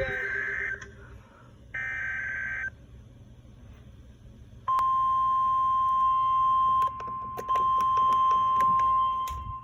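Weather radio emergency alert: the end of one burst of screechy SAME header data tones and a second one-second burst, then after a short pause a single steady high alert tone that carries on to the end with a brief dip a few seconds in. Radio hiss and static crackles run underneath. It is the alert preceding a National Weather Service special marine warning.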